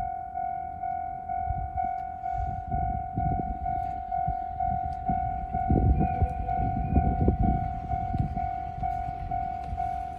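Japanese level-crossing warning alarm sounding its repeated electronic ding, about three a second, while a train rumbles and clatters over the crossing, loudest around the middle.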